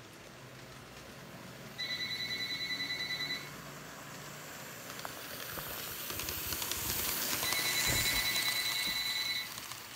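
A phone ringing twice, each ring a fast-pulsing electronic tone lasting about two seconds. Under it, N scale model trains run on the layout, their rumble growing louder as cars pass close by near the end.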